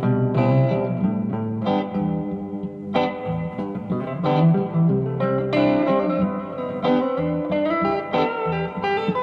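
Electric guitar played through a Vox AC10C1 10-watt valve combo amp, a continuous passage of ringing notes and chords.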